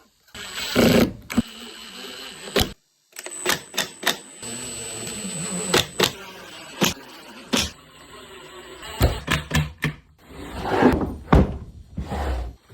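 Woodworking handling noise: a string of sharp knocks and clunks of wooden boards and tools, with a steadier running sound in the middle stretch.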